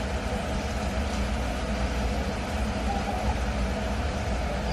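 A steady low machine hum, like an engine or motor running at idle.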